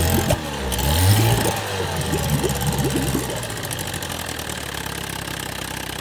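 1962 Johnson CD-19 5.5 hp two-stroke outboard motor running, revved up and down a few times and then settling to a steady idle about four seconds in. It runs okay on its freshly rebuilt carburetor and ignition.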